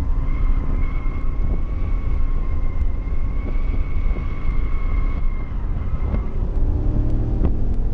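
Chevrolet Camaro driving, heard from inside the cabin: a steady engine and road rumble with a high whine that fades out about five seconds in. A deeper engine tone comes in near the end.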